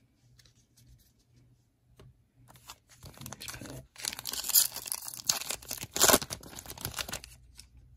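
Foil wrapper of a 2021 Panini Prestige football card pack being crinkled and torn open by hand. It is quiet for the first couple of seconds, then comes a run of crinkling with sharp rips, loudest about halfway through and again near the end.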